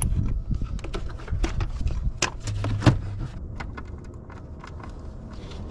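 Irregular clicks, knocks and clatter of parts being handled at the engine's throttle body, with a low rumble underneath.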